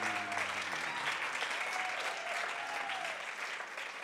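Audience applauding after a live band finishes a song, the clapping slowly dying down.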